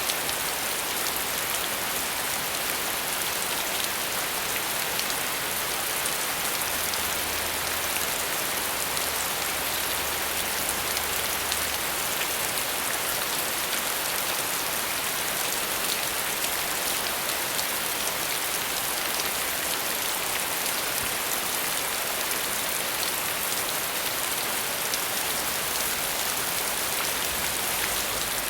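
Steady rain falling, an even dense hiss with fine patter of drops.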